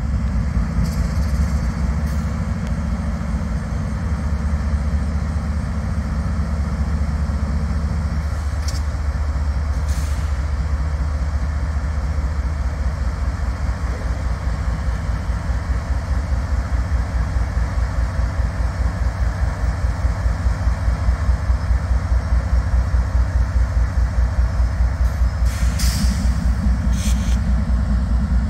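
A vehicle engine running steadily, with a regular low pulse that grows more distinct in the second half. There are a few brief sharp clicks or rattles, two of them close together near the end.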